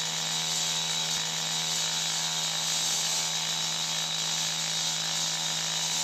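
Handheld chop saw cutting through a concrete pipe with water fed to the blade to suppress silica dust. The saw holds a steady engine note under a dense grinding hiss.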